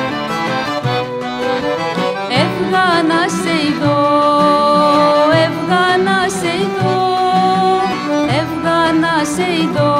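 A woman sings a Greek folk song, accompanied by accordion and violin. The opening couple of seconds are instrumental, and the voice enters about two seconds in with long held notes.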